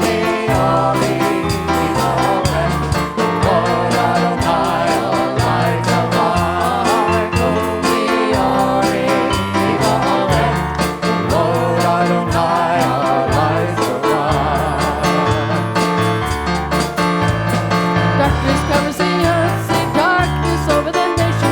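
Worship song: singing over a band with a steady beat and bass.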